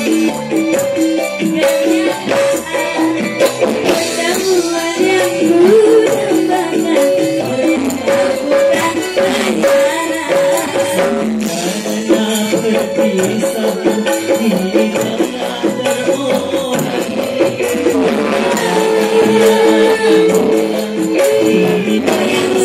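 Two Javanese sinden (female singers) singing a duet through microphones, backed by a gamelan ensemble with steady percussion strikes.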